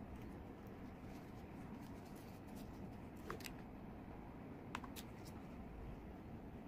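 Quiet handling of satin ribbon petals and a hot glue gun over a steady low hiss, with a few light clicks about three and five seconds in.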